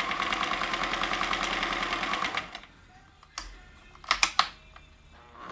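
Kenmore 158.1040 sewing machine running at speed, stitching a zigzag buttonhole with a rapid, steady stitching rhythm. It stops about two and a half seconds in, followed by a few sharp clicks.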